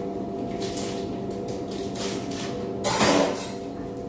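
Steady hum of kitchen equipment with faint knocks of handling, and one short, loud rustling clatter about three seconds in.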